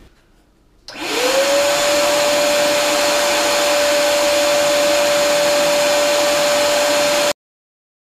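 Shop vacuum motor starting about a second in, its whine climbing quickly to a steady high pitch over loud rushing air, blowing grass clippings out from under a riding mower deck through the hose. It cuts off abruptly near the end.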